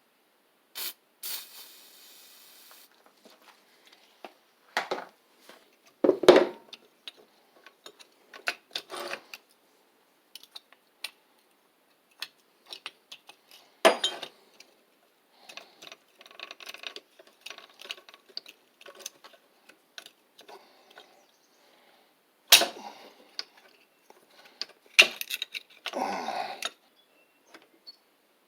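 Metal engine parts and hand tools clinking and knocking, with a few sharper knocks and spells of scraping, as a kickstarter gear stuck on the end of a small engine's crankshaft is worked loose.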